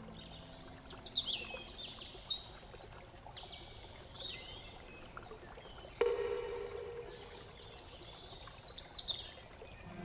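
Songbirds singing outdoors: short high chirps and whistled notes, with a quick run of notes falling in pitch over a couple of seconds near the end. A steady low tone comes in suddenly about six seconds in.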